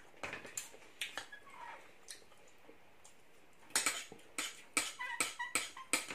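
Knives and forks scraping and clinking on ceramic dinner plates while food is cut and eaten. Light scrapes come first, then a run of sharper clinks from about halfway, a few ringing briefly.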